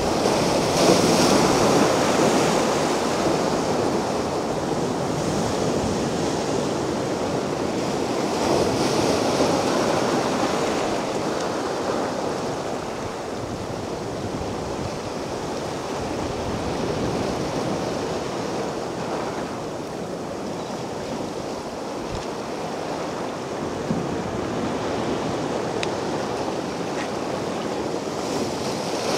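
Mediterranean surf washing onto a beach: a steady rush of waves, with swells breaking more loudly and hissing about a second in and again around nine seconds.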